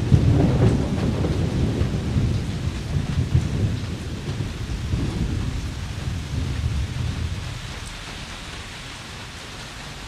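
Thunderstorm: thunder rumbling low and long over steady rain, the rumble dying away about three quarters of the way through and leaving the even hiss of the rain.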